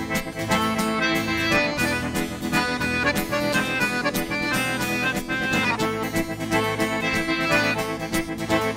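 Live forró instrumental intro led by piano accordions playing the melody over a steady rhythmic accompaniment.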